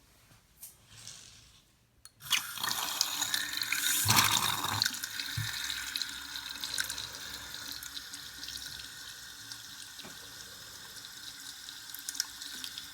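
Newly installed bathroom sink faucet turned on about two seconds in, water running into the basin, strongest for the first couple of seconds and then a steady flow. The tap is being run to push trapped air out of the freshly reconnected supply lines.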